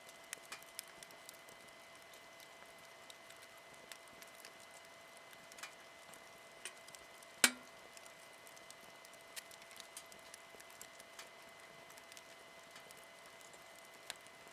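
Wood campfire crackling, with scattered small pops and one sharp, loud pop about halfway through.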